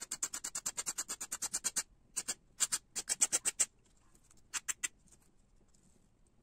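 Nail file rasping along the edge of grip tape on a wooden fingerboard deck, about eight quick strokes a second, filing the overhanging tape off flush with the deck edge. The steady filing breaks off about two seconds in, then comes back in a few short spurts and dies away after about five seconds.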